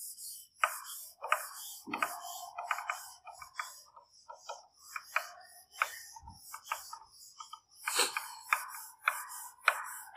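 A whiteboard duster wiping marker off a whiteboard in quick, uneven strokes, each a short scrubbing rasp, about one or two a second.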